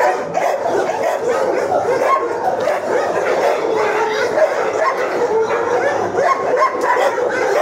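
Many shelter dogs in their kennels barking and yipping over one another, a dense, continuous din with no pauses.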